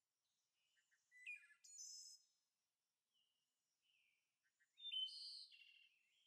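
Faint bird chirps and short calls in two clusters, about a second in and again around five seconds in, with a few softer calls between.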